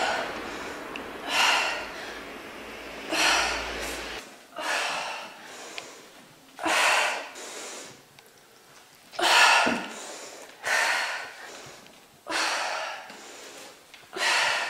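A woman breathing hard through an intense workout: about eight forceful, noisy breaths, one every one to two seconds.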